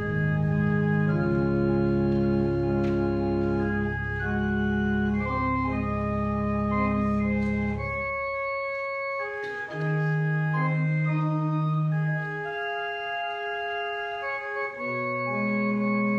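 Organ playing offertory music in slow, sustained chords. The deep bass notes drop out about halfway through and return near the end.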